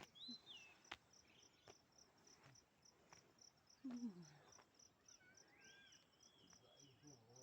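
Faint, steady insect chirping, an even high pulse about three times a second, with a couple of brief high whistled calls over it.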